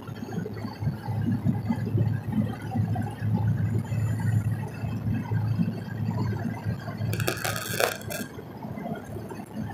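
Cab noise of a 2001 Duramax 6.6 L V8 turbodiesel pickup cruising on a highway: a steady low engine and road rumble. A brief hiss comes about seven seconds in.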